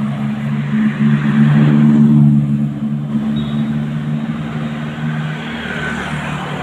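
A motor vehicle's engine passing close by on the road: a steady drone that swells to its loudest about two seconds in, then eases off.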